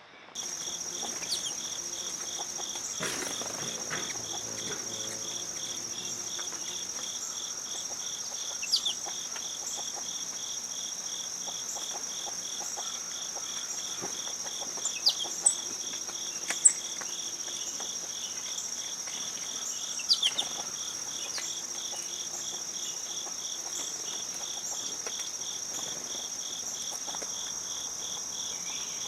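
A steady chorus of insects: one continuous high shrill trill over a lower, rapidly pulsing trill. Several short, quick falling bird chirps break in over it about a third of the way in and again around the middle.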